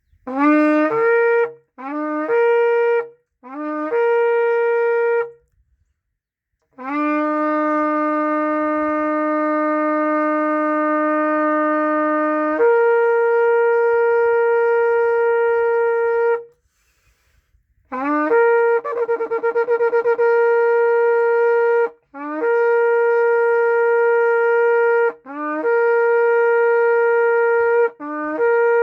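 A shofar (ram's horn) blown in a series of loud blasts, each breaking from a lower note up to a higher one: three short blasts, then one held for about ten seconds, then several more, one of them with a wavering trill.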